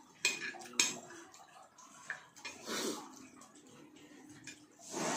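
Spoon and fork clinking against plates, with two sharp clicks about half a second apart near the start and softer eating noises after.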